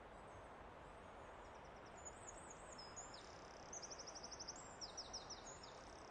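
Faint birdsong over a quiet outdoor hiss: high chirps and slurred whistles with a quick trill, starting about two seconds in.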